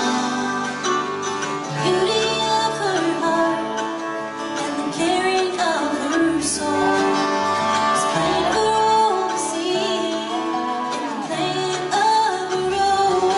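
Live acoustic country-folk band playing a song, female voices singing a bending melody over guitar, fiddle, mandolin and upright bass.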